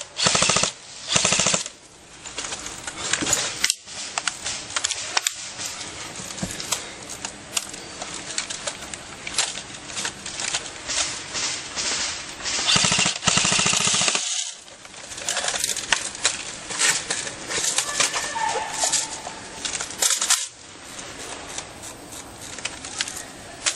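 Airsoft electric rifles firing rapid full-auto bursts: three short bursts in the first two seconds and a longer burst of over a second about halfway through, with scattered single shots and clicks in between.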